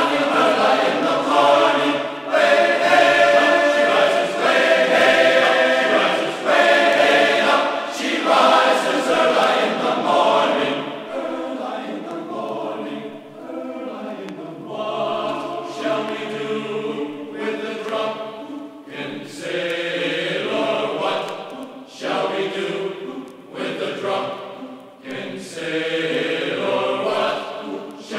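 Background music: a choir singing, in slow phrases of a few seconds that swell and fade.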